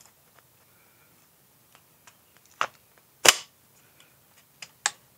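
Light clicks of parts being handled, with one sharp snap about three seconds in as the guard piece is popped into place on a Suzuki LTZ400 shock absorber.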